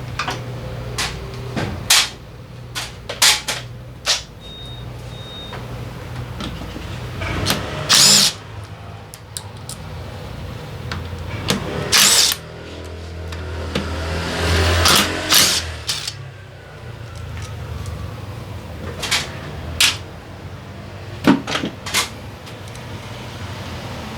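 Workshop work on a scooter's engine mounting: metal tools and fasteners clicking and clanking, with a few short bursts of a power tool, over a steady low hum.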